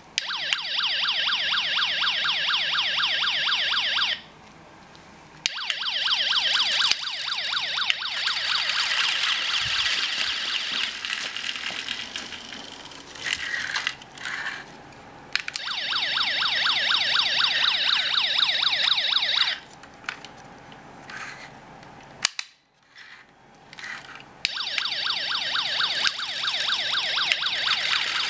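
Battery-powered electronic police-siren sound from a Ford Shelby GT350 die-cast toy police car, set off by pressing the car down: a rapid warble that plays in four runs of a few seconds each, with short breaks between them.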